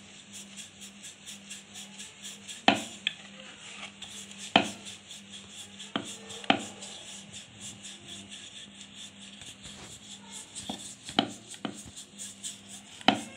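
Rolling pin rolling out a stuffed paratha on a flour-dusted stone rolling board: a steady run of quick rolling strokes, with a handful of sharper knocks of the pin against the board.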